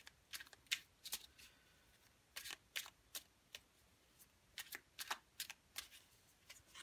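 A deck of tarot cards being handled and shuffled: a dozen or so light, sharp card clicks and snaps, irregularly spaced, as a card is drawn from the deck.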